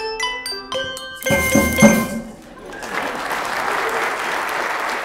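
Handbell choir ringing the last notes of a hymn, closing on a loud final chord that rings out. About three seconds in, the congregation starts applauding.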